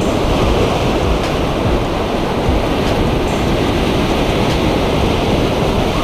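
Ocean surf breaking and washing through the shallows in a steady, loud rush, with wind buffeting the microphone.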